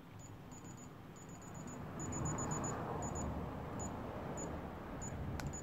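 Non-contact infrared forehead thermometer giving faint, very high, short electronic beeps in quick irregular groups: the beeping it makes when it fails to take a reading. Under it, a low rushing street noise swells and fades around the middle.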